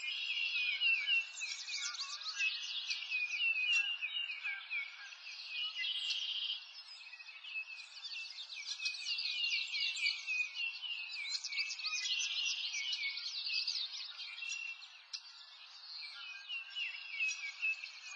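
Birdsong: many small birds chirping and trilling at once in a dense, unbroken chorus, with rapid short chirps overlapping throughout.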